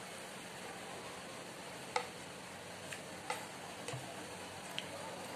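Metal spoon and fork clinking and scraping against a plate while eating: about five light, sharp clicks over a steady low hiss.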